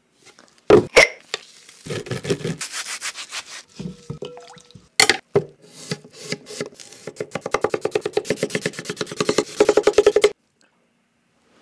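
Kitchen knife cutting rapidly through a whole Japanese cucumber onto a wooden cutting board, with chopsticks on either side stopping each cut short for an accordion cut: a long run of evenly spaced, crisp chops, several a second, that stops abruptly a little after ten seconds. Before it come two sharp knocks near the start, a brief rubbing sound and a single hard strike about five seconds in.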